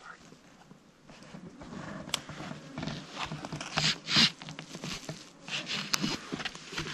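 Rustling and scraping of camouflage clothing and brush close to the microphone as someone settles down in the undergrowth, with a couple of sharp clicks.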